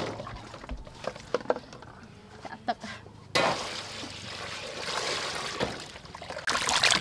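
A few light knocks and clinks of metal, then water poured from a bowl into a large stainless steel bowl of food, starting abruptly about halfway through and splashing on, louder near the end.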